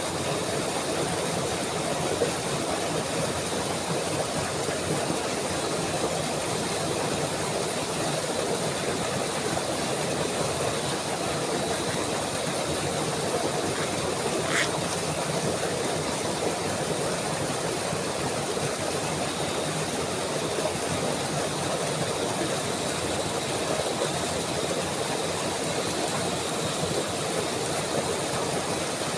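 Flowing water rushing steadily, as of a stream or waterfall. A single brief high chirp about halfway through.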